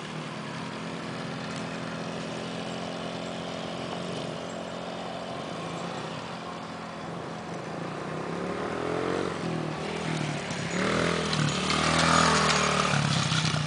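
Small engines of a youth quad and a mini dirt bike running, their pitch rising and falling as the riders rev and ease off. The sound is loudest about twelve seconds in, as the dirt bike passes close by.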